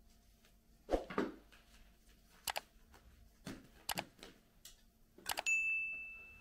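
Kitchenware knocking and clinking in a scattered series of short strikes. Near the end one strike leaves a high ringing tone that fades away over a second or so, like a metal or glass dish struck.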